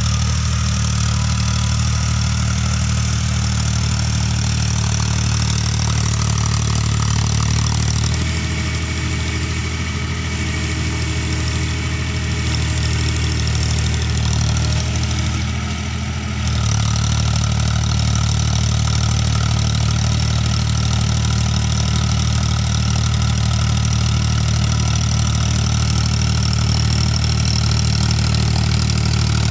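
Tractor diesel engine running steadily while pulling a rotary tiller through the soil. The engine note eases for several seconds midway, then picks up again.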